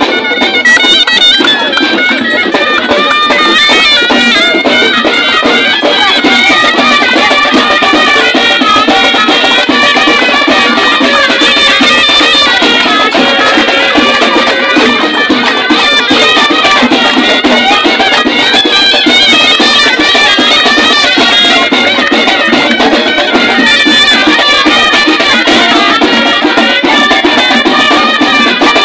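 Moroccan folk troupe music: shrill reed pipes (ghaita) playing a winding melody over dense drumming, loud and unbroken.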